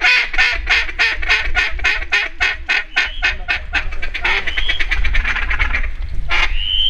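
Duck calling in a very rapid, even run of short notes, about ten a second, like a feeding chuckle on a mallard-style duck call, joined later by a few short rising whistled notes.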